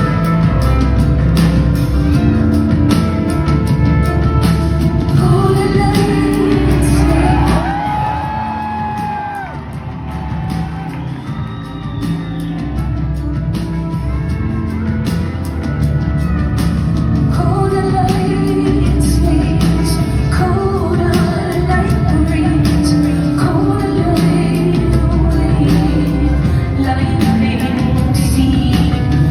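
Live rock song in a theatre: a woman singing over a band with a pulsing bass line and drums. The music thins out and drops in level for a few seconds about eight seconds in, then comes back to full strength.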